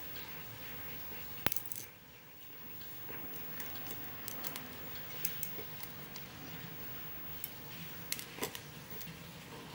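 Slime being handled by hand, giving scattered sharp clicks and pops: the loudest about a second and a half in, and a cluster near the end.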